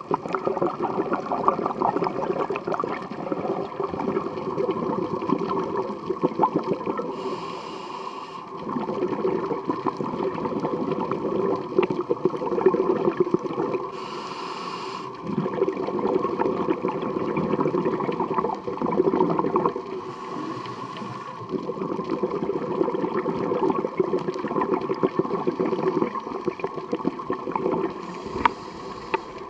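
A scuba diver breathing through a regulator underwater. Long bubbling exhalations run on, broken four times by a short hissing inhale from the regulator, roughly every six to seven seconds.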